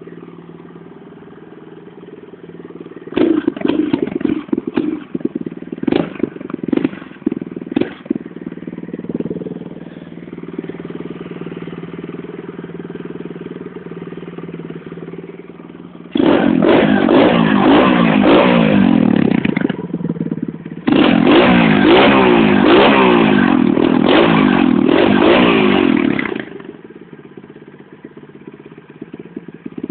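FYM 125 CR dirt bike engine, fitted with a 24 mm OKO carburettor, a homemade intake trumpet and a 250 exhaust. It idles, then gets a string of short throttle blips, idles again, and then runs at high revs in two long loud stretches with the pitch rising and falling, before dropping back to a lower, quieter run near the end.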